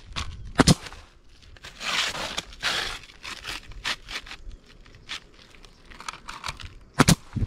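Pneumatic brad nailer firing into roofing: one sharp shot about a second in and another, doubled, near the end. In between come a rustling, scraping noise and small crackles from handling the roofing material.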